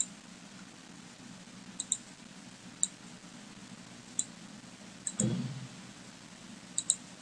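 Computer mouse buttons clicking now and then, several as quick double-clicks, over a faint steady low hum. A soft low thump about five seconds in.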